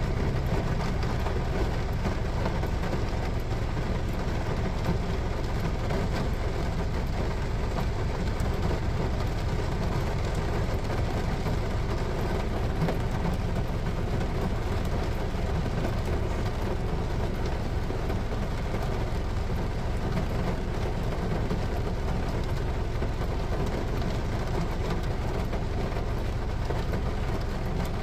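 Heavy rain falling on a car's roof and windshield, heard from inside the cabin over the steady low rumble of the car. The noise stays even throughout.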